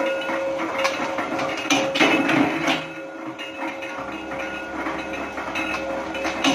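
Flywheel-driven mechanical power press running with a steady hum, its ram striking the die to press small steel lock parts, with several sharp metallic strokes in the first three seconds and another near the end.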